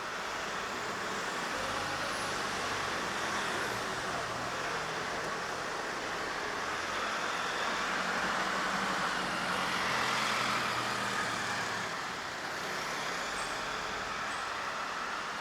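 Underground parking garage room tone: a steady hiss with a low rumble that swells gently around the middle and then eases off.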